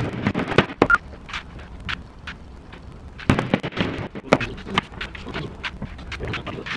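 Mallet striking plywood panels, a run of sharp knocks. One burst of blows comes in the first second and another from about three to five seconds in, with scattered lighter taps between.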